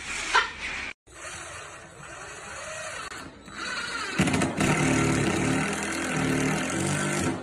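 Cordless drill motor running in a few short bursts as it drives a screw into a plywood subfloor; the bursts are loudest in the last three seconds.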